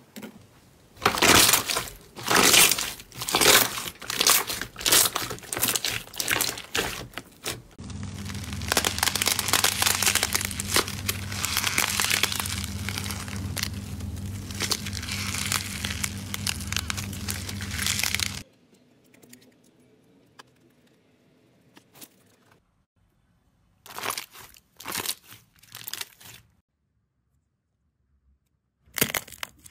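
Slime being squeezed, poked and stretched by hand, giving trains of crackling, crinkling pops. In the middle stretch the crackle turns into a denser, continuous rustle over a steady low hum. Later it thins to sparse faint clicks and short bursts, with a near-silent gap before the end.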